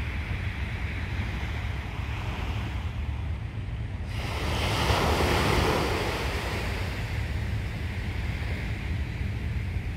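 A small wave washing in on the shore, swelling about four seconds in and fading over a couple of seconds, over a steady rumble of wind on the microphone.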